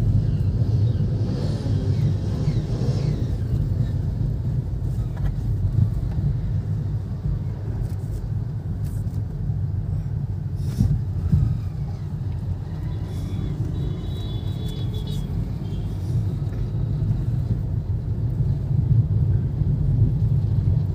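Steady low rumble of engine and road noise heard inside a Hyundai Grand i10 Nios hatchback as it drives slowly on town roads, with a few light clicks and a brief faint high tone about two-thirds of the way through.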